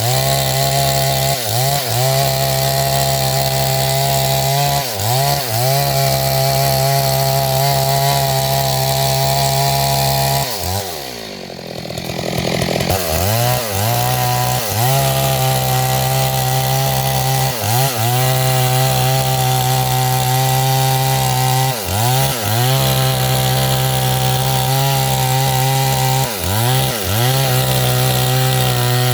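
Two-stroke chainsaw running at high revs, cutting into a big tree. Its pitch dips briefly and recovers every few seconds, and about a third of the way in it drops to a lower, quieter note for about a second before revving back up.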